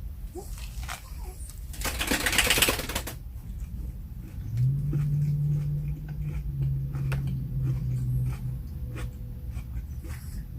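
Close-miked eating: small clicks and smacks of chewing, with a loud burst of paper rustling about two seconds in. A steady low hum starts about four and a half seconds in and stops about four seconds later.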